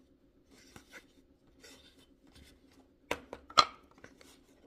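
Small objects being handled: a box and its contents, giving a few light clicks and rustles, then two sharper clicks about three and three and a half seconds in.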